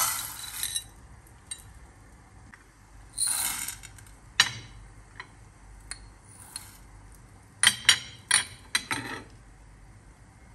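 Whole spices, coriander seeds, black peppercorns and cumin, poured by hand into a dry nonstick frying pan for dry-roasting, rattling briefly as they land, twice in the first few seconds. Scattered sharp clicks and taps follow, with a quick cluster of clinks near the end.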